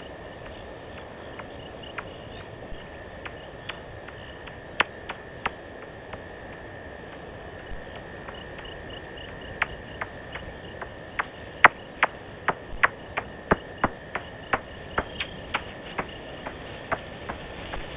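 Bats calling: short, sharp clicking pings, a few scattered at first and then coming about once or twice a second in the second half. They sound over a steady insect trill.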